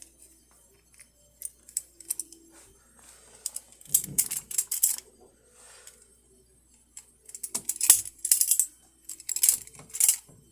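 Butterfly knife being handled and flipped, its metal handles and blade clacking together in a few short flurries of sharp clicks, the biggest about four seconds in and two more near the end.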